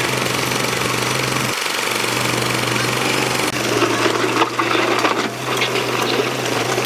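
Excavator's diesel engine running steadily under load, joined from about halfway by irregular clanks and knocks from the digging work.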